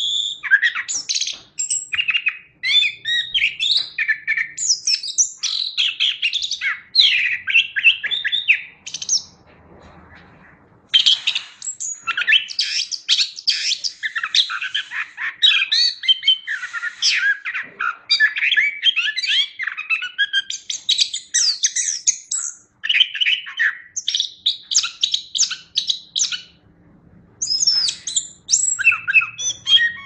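Chestnut-capped thrush (anis kembang) singing a fast, continuous stream of varied chirps, trills and whistles, with a pause of about a second and a half about ten seconds in and short pauses near the end.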